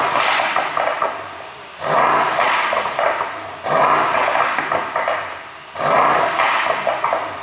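Mercedes-AMG S63 Coupe's twin-turbo V8 blipped four times, about every two seconds, each rev falling away into exhaust pops and crackles from a pop-and-crackle tune.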